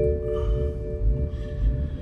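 A bell-like chime with several steady tones, struck just before and slowly fading away, over a continuous low rumble.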